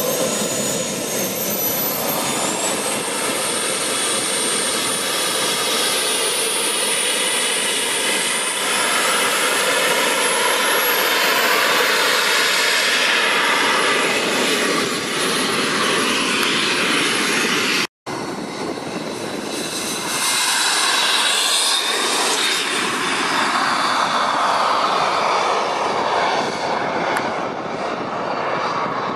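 Kingtech K-180G2 turbine of a radio-controlled model jet running with a high whine over a loud rush, the whine edging higher partway through. It drops out for an instant about eighteen seconds in, then returns with the pitch sweeping down as the jet flies past.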